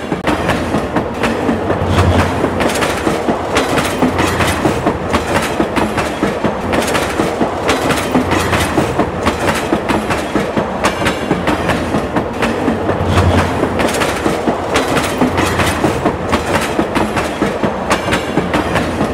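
Train running on rails, its wheels clattering over the rail joints in a fast, even clickety-clack that goes on without a break.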